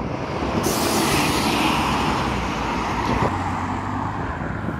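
Road traffic: a car driving past close by, its tyre and engine noise swelling about half a second in and fading away over the next few seconds.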